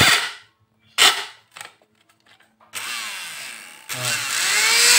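Two sharp clicks a second apart, then the small electric motor of an opened Philips hand mixer starts running with a rising whine, getting louder about a second later. Its plastic drive gears are stripped, so the motor spins while the beaters do not turn.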